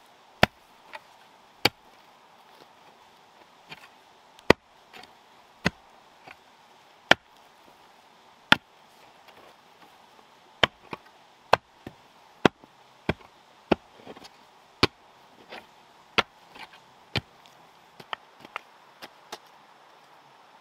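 A hand tool chopping at wood: sharp single strikes, irregular, a second or two apart at first and coming faster, several a second, in the second half.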